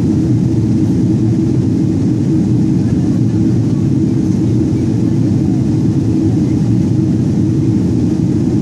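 Steady low cabin noise of a jet airliner in flight, the engines and rushing air heard from inside the fuselage at a window seat.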